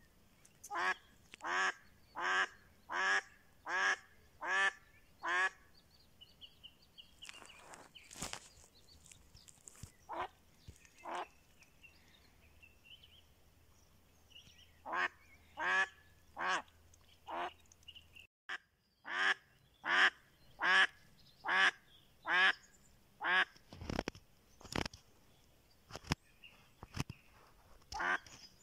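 A live decoy hen duck quacking in runs of about six or seven loud, evenly spaced quacks, with a shorter run and a few single quacks between; this is the hen calling to draw in drakes. A few short knocks come near the end.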